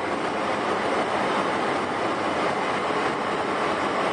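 Aircraft cabin noise in flight: a steady, even rush of engine and airflow noise.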